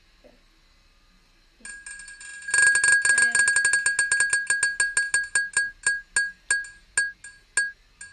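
Spinning-wheel game on a tablet ticking as its wheel spins, heard through the tablet's speaker. Bell-like ticks set in about two seconds in, very rapid at first and then slowing steadily as the wheel loses speed.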